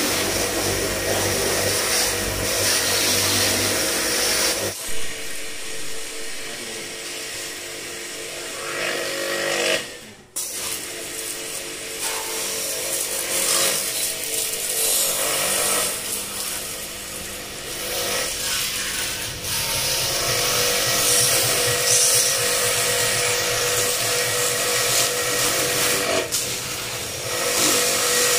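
StarQ W3A portable electric pressure washer running, its motor humming steadily under the hiss of the water spray. The sound breaks off abruptly twice and starts again.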